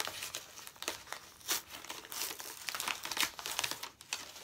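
Packaging crinkling and crackling in a steady run of irregular small crackles as it is handled and worked open, with a few louder crackles along the way.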